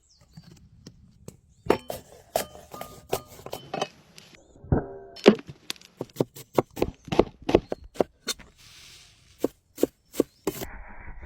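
Oyster shells and utensils being handled: a string of sharp clacks, knocks and clinks at an uneven pace, some with a short ringing tone. A steady hiss sets in near the end.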